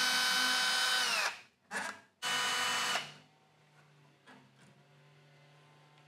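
Cordless drill/driver backing out the screws that hold the ECM control module onto the blower motor. It gives a steady high whine that winds down about a second in. A brief blip follows, then a second short run that stops about three seconds in.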